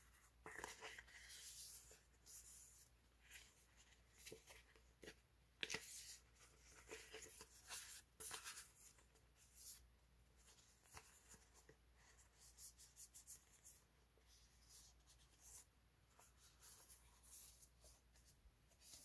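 Sheets of printed sticker paper being handled and shuffled: faint, scattered paper rustles and flicks, a few sharper ones around the middle.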